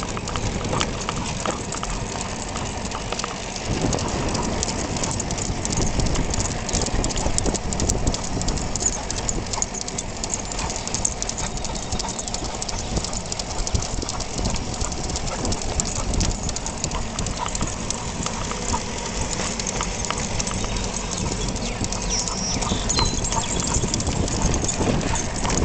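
Riding noise from a recumbent bicycle moving at about 12 mph: a steady low rumble of wind and road noise, with a hiss, crossed by many quick clicks and rattles.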